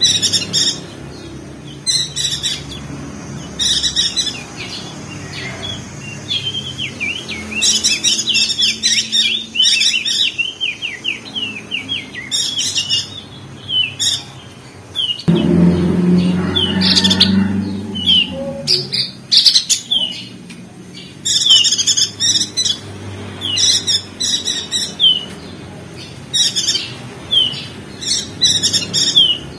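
Perenjak daun (opior jambul) chattering: bursts of fast, high twittering chirps repeated every second or two, with other birds calling. A low rumble comes in about 15 s in and lasts a few seconds.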